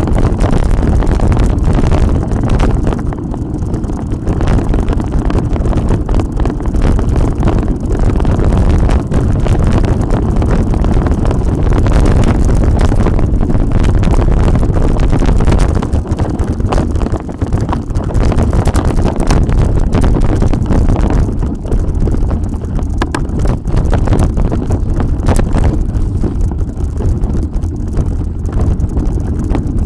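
Heavy wind buffeting on a bike-mounted microphone over the rumble of mountain bike tyres on a dirt trail, with scattered rattles and knocks from the bike over bumps.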